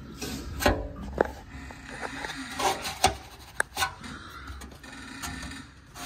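Handling noise: scattered light knocks and clicks with rubbing as the phone camera is moved about by hand.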